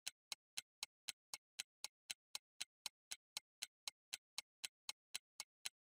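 Ticking sound effect of a timer: a steady run of quiet, evenly spaced clicks, about four a second. It marks a pause for working out the problem just set.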